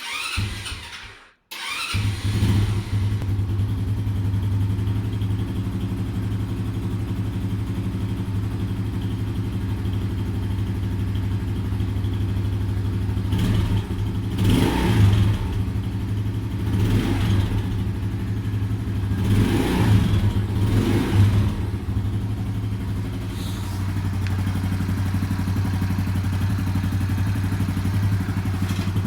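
Small 50 cc Chinese moped engine running steadily, with a few short throttle blips about halfway through; its valves have been set wrong, which the owner blames on a mechanic. The sound breaks off briefly about a second in before the steady running begins.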